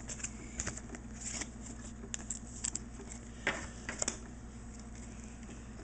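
Pokémon trading cards being handled and slid through by hand, with light papery rustling and scattered small clicks.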